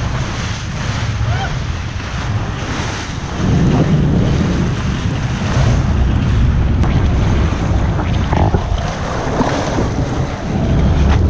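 Wind buffeting the microphone over the rush and splash of water along a moving boat's hull and wake. The sound is a steady noisy rumble that gets louder about three and a half seconds in.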